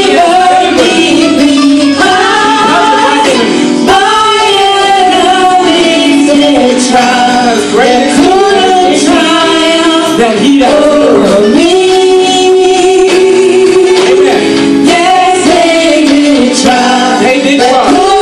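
A small gospel vocal group of women and one man singing together into handheld microphones, amplified in a large hall, with long held notes and sliding runs.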